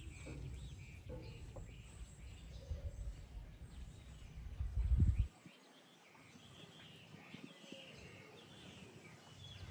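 Outdoor ambience of small birds chirping repeatedly over a low rumble. The rumble swells and then drops away about five seconds in.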